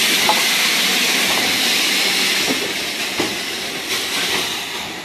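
LMS Stanier 8F steam locomotive No. 8274 hissing steam, escaping low down around its cylinders and wheels. The steady loud hiss slowly fades, with a few light knocks over it.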